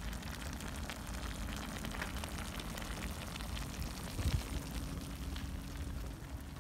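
Clay tagine of beef simmering in its sauce over a flame: soft bubbling and crackling ticks over a low rumble, with a single thump about four seconds in.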